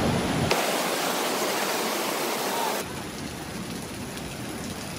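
Mountain stream rushing over rocks, a steady noisy rush of water. About half a second in the sound abruptly loses its low rumble, and about three seconds in it drops to a softer rush.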